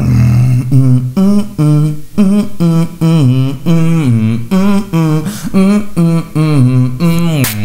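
Beatboxer humming a melody in short, evenly paced notes, the pitch stepping up and down, with one sharp click-like hit near the end.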